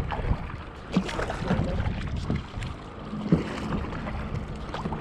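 Wind rumbling on the microphone and water sounds around a kayak, with several short knocks and clicks scattered through it.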